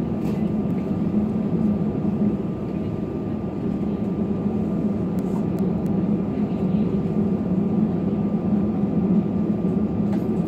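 Steady cabin noise inside an Airbus A320 taxiing after landing: a low engine hum with a thin steady whine above it.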